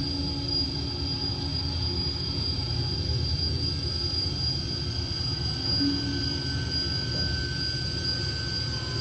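A steady low rumbling drone with a constant thin, high-pitched whine over it, and a short low hum tone about six seconds in: an industrial-sounding stage soundscape.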